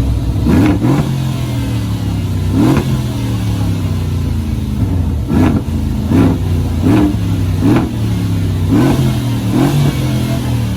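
A car engine revved in short, repeated blips, about once a second, with the pitch falling back toward idle between them.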